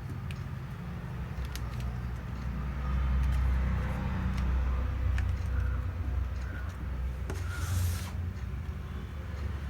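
Small clicks and rubbing scrapes of hands working a laptop's 2.5-inch hard drive loose from its bay, with a short louder scrape about eight seconds in, over a steady low hum.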